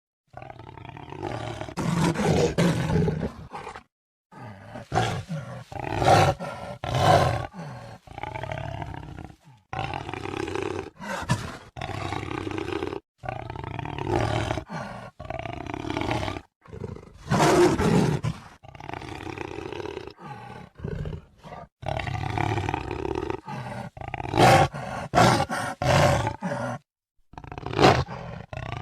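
Jaguar roaring: a string of loud, rough calls, cut off abruptly several times where separate recordings are spliced together.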